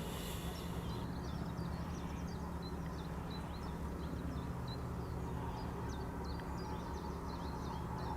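Small birds chirping and singing: a busy run of short, quick high notes, several a second, over a steady low outdoor rumble.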